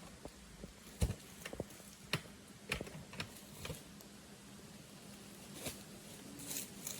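Irregular crunching footsteps on rough ground while climbing, with a brief rustle near the end.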